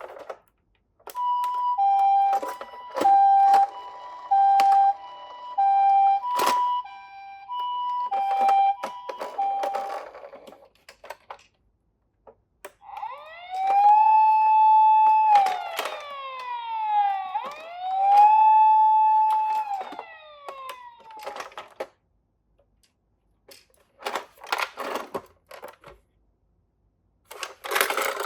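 Toy ambulance's electronic two-tone siren going "pee-po, pee-po", each tone lasting about half a second, with small plastic clicks and knocks over it. This is followed by a siren that wails up and down twice, and by clattering near the end.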